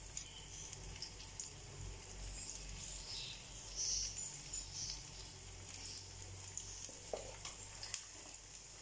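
Vadagam frying in hot sesame and refined oil in a clay pot: a faint, steady sizzle with light crackles, the tempering stage of the curry, with the odd light click of the wooden spatula stirring it.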